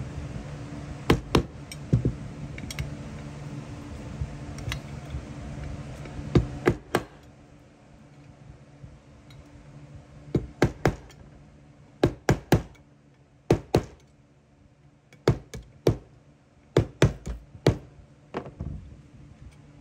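Sharp knocks and taps on hard objects, some single and some in quick pairs or small clusters, with a steady low hum behind them that stops about seven seconds in.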